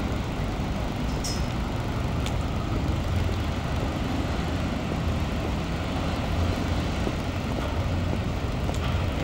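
City street traffic: a steady low rumble of cars passing on a wide road.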